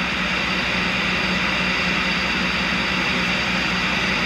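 A tool and cutter grinder's diamond wheel running steadily together with a shop vacuum pulling off carbide dust, giving an even hum and whir. A dressing stick is held against the 180-grit diamond wheel to clean it.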